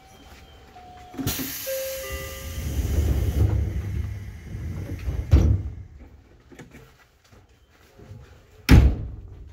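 Doors of a stopped electric commuter train: a hiss with a few short steady tones starting about a second in, a thud around five seconds, then a loud bang near the end as the cab's sliding door is worked.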